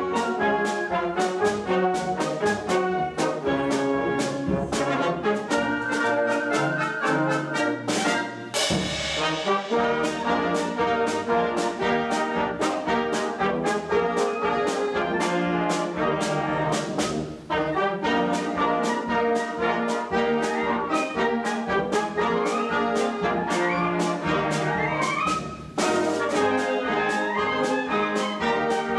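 Concert band playing: brass and woodwinds over a steady percussion beat. There is a crash just after eight seconds in, and a rising run of notes near the end.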